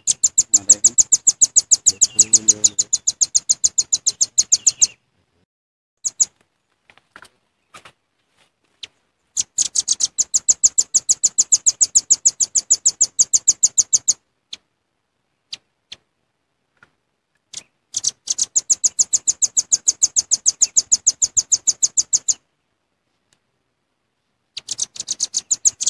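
Velvet-fronted nuthatch (rambatan paruh merah) calling: four bouts of rapid, evenly spaced, high sharp notes, each lasting about four to five seconds, with short pauses and a few single notes between them.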